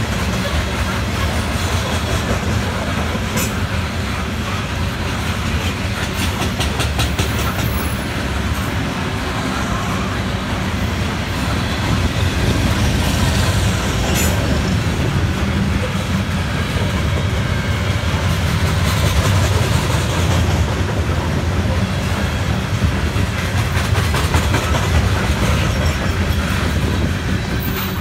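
Coal train's hopper cars rolling past on the rails: a loud, steady rumble with the wheels clacking over rail joints.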